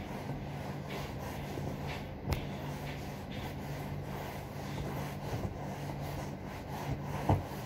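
A cloth rubbing and wiping across a leather sofa's surface in repeated strokes, with a couple of short knocks about two seconds in and near the end. A steady low hum runs underneath.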